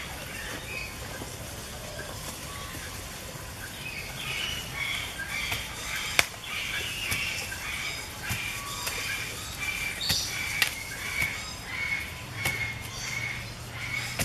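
A bird calling in the background: a short high chirp repeated about twice a second from about four seconds in. A few sharp knocks stand out, the loudest about six seconds in.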